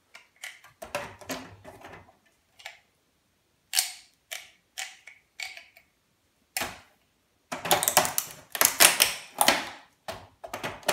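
Pliers wrenching and prying parts inside a Philips VCR's tape mechanism, metal and plastic clicking and snapping. First come scattered single cracks, then a louder, denser run of scraping and cracking from about seven and a half seconds in.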